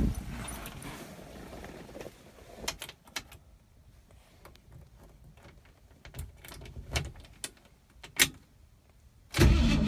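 A few light clicks and knocks of the ignition key and the cabin, then, about half a second before the end, the 1968 Mustang's 289 cubic-inch small-block Ford V8 starts up and runs loudly.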